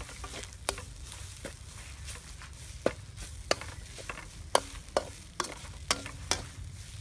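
A metal spoon stirring in a stainless steel bowl and clinking against its side about ten times at an uneven pace, some clinks ringing briefly, over a low steady rumble.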